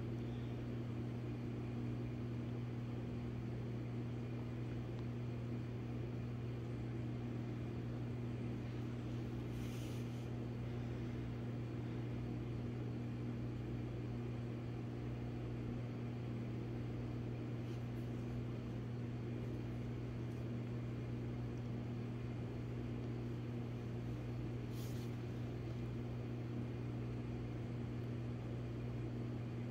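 Steady low hum of running aquarium equipment, such as pumps, with a faint hiss over it.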